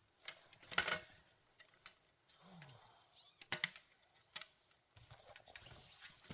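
A few sharp clicks and knocks, the loudest about a second in and another about three and a half seconds in, with quieter rustling and handling noise between.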